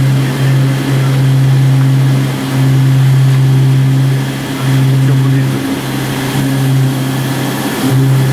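DMG milling machine running with a loud, steady low hum that dips briefly several times.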